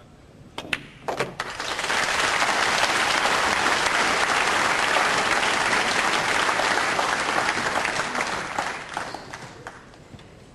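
A few sharp clicks of pool balls being struck about half a second in, then an arena audience applauding loudly for several seconds, fading out near the end.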